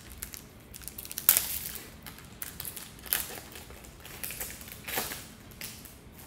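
Foil wrapper of a Pokémon trading-card booster pack crinkling and crumpling in irregular crackly bursts as it is handled and opened, the loudest about a second in.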